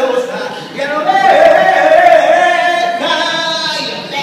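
A woman's voice singing without accompaniment, in long held notes.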